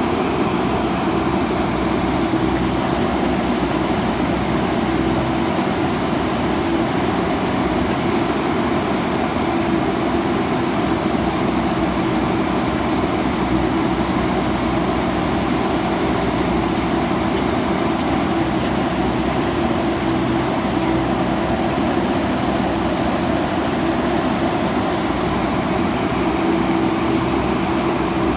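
Diesel engine of a JCB backhoe loader running steadily at an even pitch.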